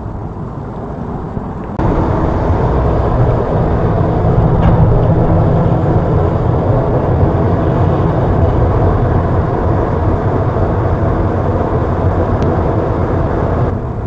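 Kobelco SK330-10 excavator's diesel engine running steadily, stepping up to a louder, heavier run about two seconds in.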